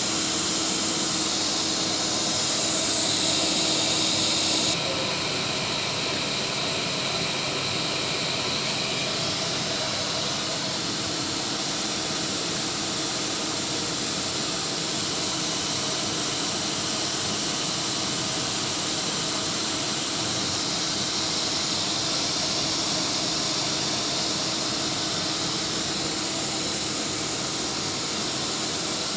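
Flexicam CNC router running with a steady high hiss. A faint hum stops about five seconds in, and the sound drops a little there.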